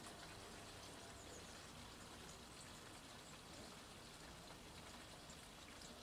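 Coolant draining from a Cat 3412 diesel engine into a can: a faint, steady pouring trickle.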